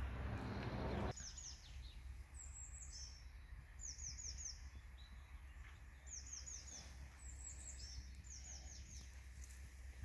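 A small songbird singing, each phrase a quick run of three or four high, falling chirps, repeated every second or two over a faint low rumble. A rushing noise in the first second cuts off suddenly.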